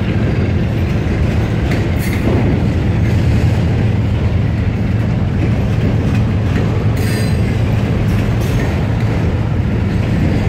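Autorack freight cars rolling past on steel wheels, a steady loud rumble of wheels on rail. Brief high metallic wheel squeal comes through about two and seven seconds in as the train works over the crossover.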